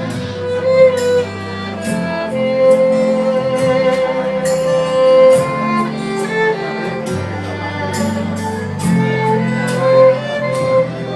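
Instrumental wedding music led by violin over strings, with a steady bass line and a regular beat.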